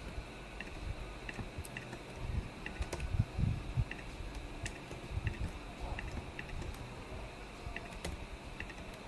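Computer keyboard keys and mouse clicks: a run of light clicks roughly every half to three-quarters of a second, with a few soft low thumps about three seconds in.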